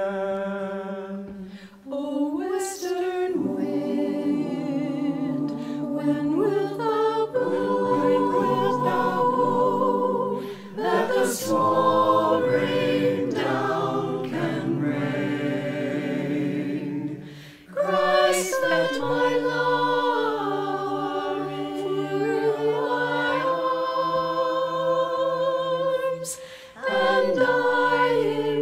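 Mixed a cappella choir singing held chords in several voice parts, in long phrases broken by brief pauses between them.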